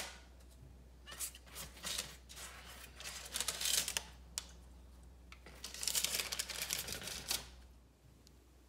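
Pastry brush swishing melted butter over the crust of baked French bread loaves, in several soft brushing strokes of uneven length, the longest near the end.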